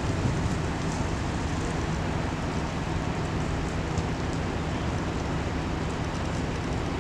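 A vehicle engine idling steadily, a low constant hum under an even rushing noise.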